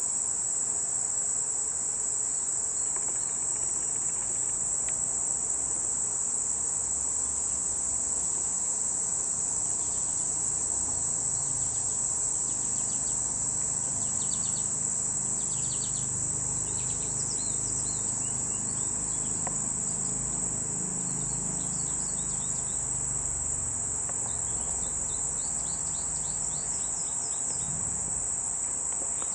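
Steady, unbroken high-pitched chorus of insects, with short faint chirps over it now and then.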